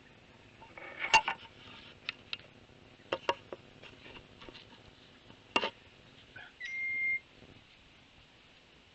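A scattered series of sharp clicks and taps, the loudest about a second in, then a short steady electronic beep lasting about half a second.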